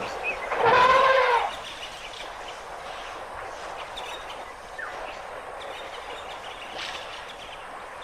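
African elephant trumpeting once about a second in: a short, loud, brassy blast that rises and then falls in pitch. Afterwards only faint outdoor background with a few faint chirps is left.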